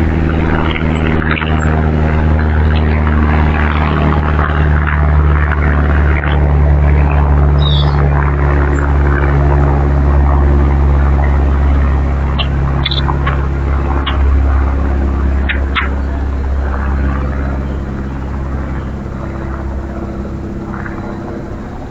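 A motor engine running with a steady low hum. It is loudest in the middle and fades toward the end. A few short bird chirps sound over it.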